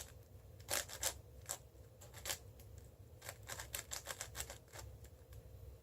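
Quiet plastic clicking of a Cubicle WuShuang M 5x5 speedcube being turned by hand: irregular quick layer turns during center building, in little clusters of clicks.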